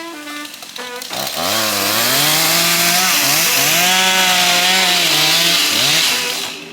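Gasoline chainsaw throttling up about a second in and cutting into a tree at high revs, its engine speed sagging and recovering under the load of the cut, then dropping away near the end.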